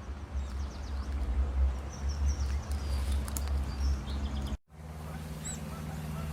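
Wild birds chirping and singing in short high notes over a loud, uneven low rumble. About four and a half seconds in, the sound cuts abruptly to a steadier low hum with a few clear, separate bird notes.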